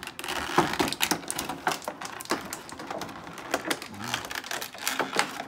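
Thin clear plastic packaging trays crackling and clicking as they are handled and toy parts are popped out of them, in quick irregular clicks.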